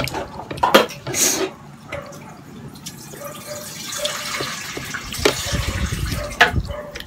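Close-up wet eating sounds: a child picking food from a bowl by hand and chewing, with scattered sharp clicks and smacks.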